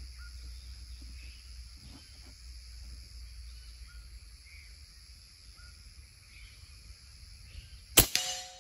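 Insects buzzing and faint bird chirps, then about eight seconds in one loud, sharp shot from an AZTK Kong PCP air rifle in .35 calibre (9 mm), its moderator fitted with only four baffles. A short ringing tone follows the shot and fades within a second.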